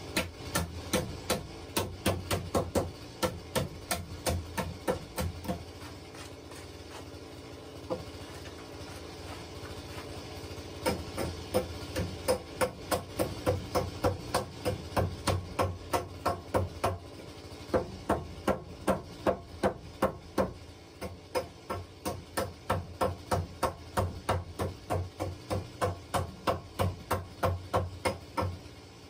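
Hammer driving nails into wooden floor planks: quick runs of sharp strikes, about two to three a second, broken by pauses of a few seconds between nails.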